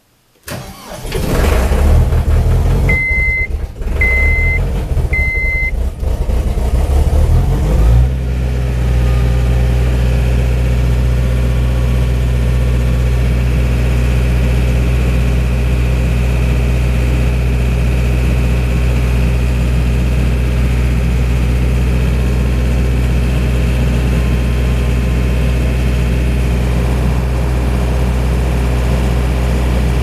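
John Deere 317 skid steer's diesel engine starting cold below freezing after the glow plugs: it fires about half a second in and runs unevenly for several seconds while three short high beeps sound. About eight seconds in it settles into a steady fast idle near 1860 rpm, held up on the throttle because it won't stay running cold.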